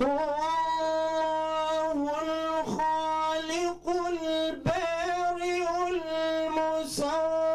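A man's voice chanting Quran recitation in long, held melodic notes with small ornamental turns, pausing briefly for breath a few times.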